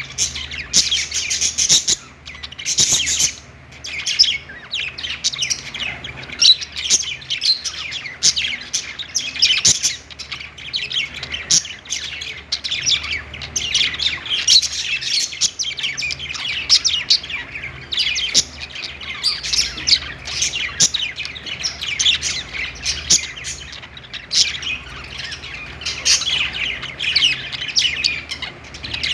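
A group of budgerigars chirping and chattering together, many short overlapping calls that never let up.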